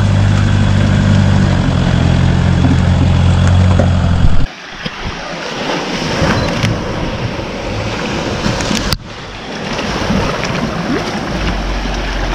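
Off-road vehicle's engine running steadily at low revs, cutting off abruptly about four and a half seconds in. After that comes a rushing noise with scattered clicks and knocks.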